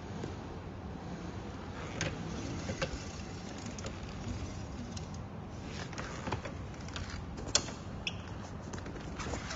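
Irregular light clicks and taps from handling a disc brake caliper and its wheel, over a steady low background hum. The sharpest tap comes about two thirds of the way through, followed shortly by a brief faint metallic ring.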